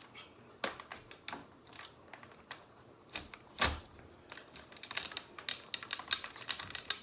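Irregular clicks and knocks from handling a mannequin head and its tripod stand as the head is fitted on top, with one heavier knock about three and a half seconds in and quicker clicking near the end.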